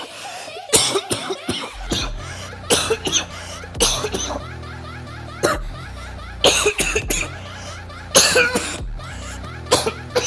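A person in a harsh, repeated coughing fit, one burst of coughs every second or two. This is 'tren cough', a side effect of the anabolic steroid trenbolone. Background music with a steady low beat comes in underneath about two seconds in.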